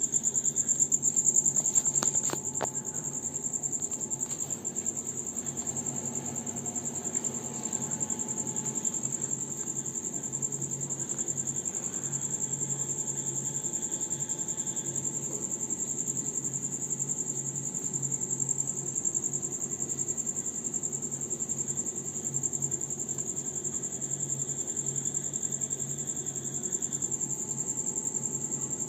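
Low steady hum of the cashew humidification machinery under a continuous high-pitched, finely pulsing trill. A couple of sharp clicks sound about two seconds in.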